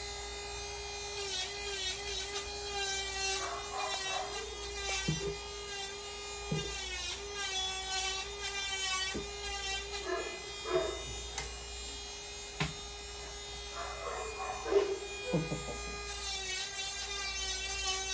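Electric grooming clippers running with a steady hum as they are worked over a bulldog's coat, the higher part of the hum wavering up and down. A few short knocks are heard along the way.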